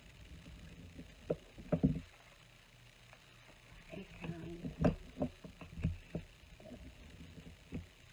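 White cardstock being folded along its score lines and creased with a bone folder on a craft mat: scattered soft thumps and paper rustles, the loudest about five seconds in.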